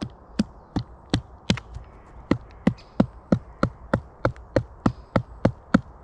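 Steady hammering, about three sharp strikes a second: a large carved wooden tarp peg being driven into the forest ground.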